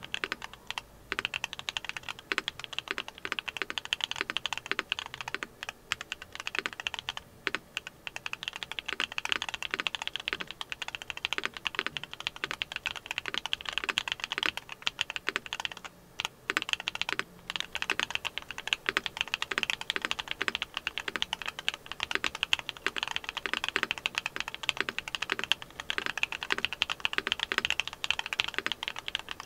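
Steady fast typing on a mechanical keyboard with hand-lubed Duhuk Lumia Matcha V4 Pro linear switches on 62.5 g springs: a dense run of deep, thocky keystrokes, broken by a few short pauses.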